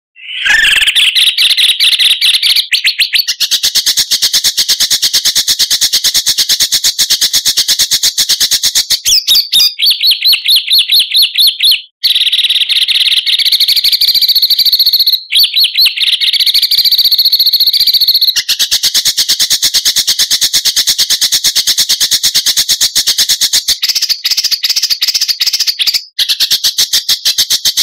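Songbird masteran recording: a dense stream of fast, rapid-fire chirps and trills. It begins abruptly and switches to a different call type every few seconds, with a few short breaks between clips.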